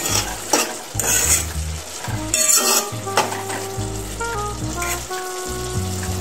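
A spoon stirring and scraping through saltfish and vegetables sizzling in a metal pot, with a few scraping strokes in the first three seconds. Background music plays underneath.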